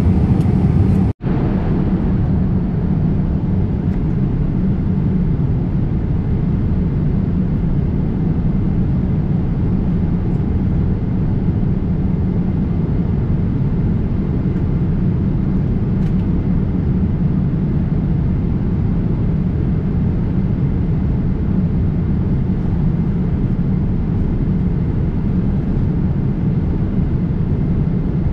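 Steady rumble of engine and air noise inside the cabin of a Boeing 787-8 airliner, with a momentary dropout about a second in where the recording cuts.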